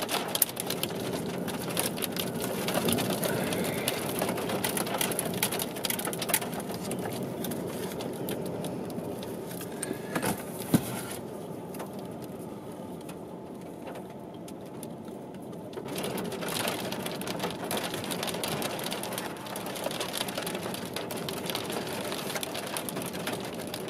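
Rain pattering, a dense crackle of drops over a steady hiss, thinning out for a few seconds past the middle.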